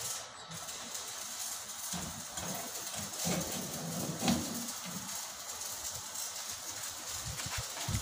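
Light knocks and a sharp metallic click about four seconds in as a stainless-steel cover and scraper attachment are fitted onto a wet grinder, over a steady hiss.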